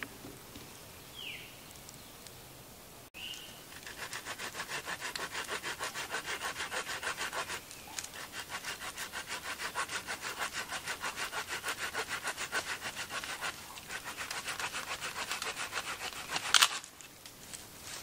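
Hand saw cutting through a dead branch with quick, even back-and-forth strokes, about four a second, starting about three seconds in. A sharp crack stands out near the end; a short bird chirp sounds just before the sawing starts.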